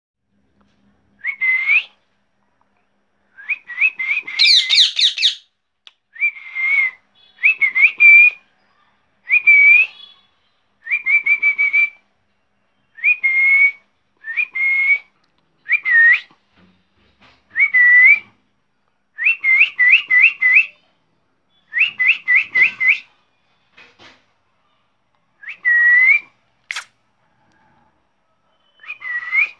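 Pet parrot whistling: short whistled notes, mostly dipping-then-rising glides, repeated every second or two and sometimes in quick runs of three or four.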